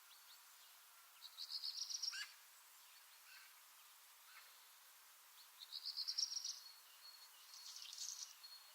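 Songbirds singing in a garden: two short, rapid high trills about a second long, one near the start and one near the middle, with fainter chirps and thin whistled notes between and toward the end. Faint overall.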